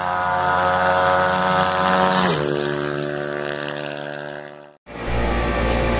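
An engine revving up, its pitch climbing steadily, then dropping abruptly at a gear change a little over two seconds in. It holds and fades out near the end, where it gives way to a low, steady rumble.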